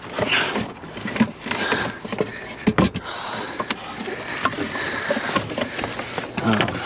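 Rummaging through trash bags and debris in a dumpster: irregular rustling, scraping and clattering, with a few sharp knocks about three seconds in.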